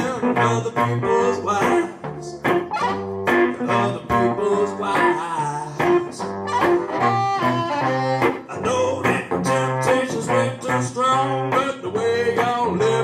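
Live blues from a one-man band: harmonica played through the vocal mic over slide guitar, with a steady beat about twice a second.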